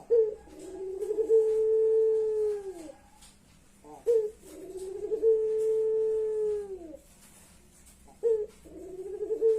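Puter pelung, a ringneck dove bred for a long coo, calling three times about four seconds apart. Each call is a short sharp note, then a long drawn-out tone that falls away at its end. The call is likened to someone crying.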